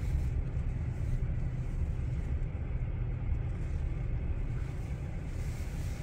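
Steady low rumble of a car's road and engine noise, heard from inside the cabin while driving.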